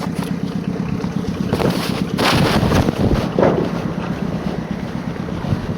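Wind buffeting the microphone over a steady low mechanical rumble, with a stronger gust a little past two seconds in.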